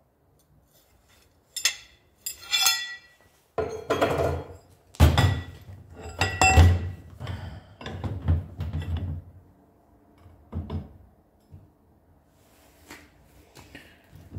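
Large steel chain sprocket clinking and ringing twice as it is handled, then a run of heavy metal knocks and scrapes as it is fitted onto the drive-shaft spool's carrier, followed by a few lighter knocks.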